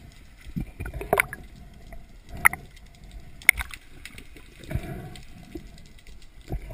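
Underwater sound heard through a submerged camera: low gurgling water noise with a few sharp clicks and knocks, the sharpest about three and a half seconds in.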